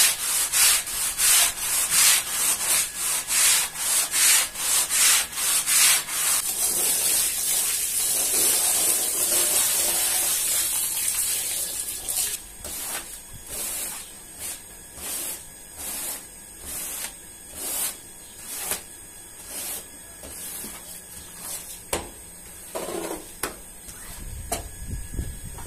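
Stiff-bristled push broom scrubbing a wet, soapy rug: a fast run of even strokes, about two a second, that merges into a steady scrubbing hiss. After that come quieter, separate scrubbing strokes, about one and a half a second.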